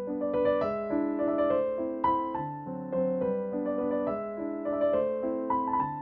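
Background piano music, single notes and chords struck one after another, each fading away.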